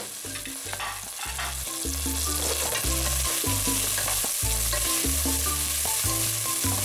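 Chopped onion, carrot and celery sizzling in hot olive oil in a pot as a wooden spoon stirs them, the first stage of a bolognese soffritto; the sizzle grows louder about two seconds in. Background music with low bass notes plays underneath.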